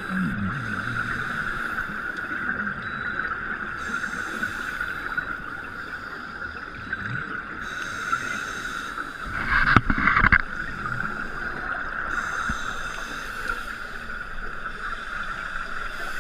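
Underwater sound through an action camera's housing: a steady whine, with a loud rush of scuba regulator exhaust bubbles lasting about a second, about ten seconds in.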